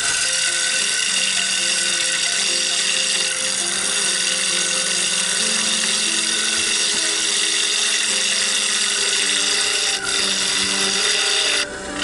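Gouge cutting into a wooden bowl spinning on a King KWL-813VS variable-speed mini wood lathe while the inside is hollowed out: a steady, high-pitched hiss of the cut. It breaks off briefly near the end as the tool lifts, then bites again. Background music plays underneath.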